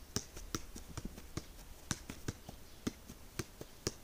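Football being juggled on the foot, a short knock at each touch, about two a second.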